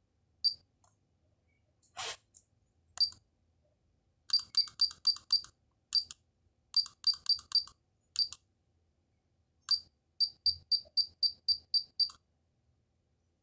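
Pioneer DEH-3UB car stereo giving short high key beeps as its rotary knob and buttons are worked to set the clock: single beeps, then quick runs of four to eight beeps as the hours step. One sharp click about two seconds in.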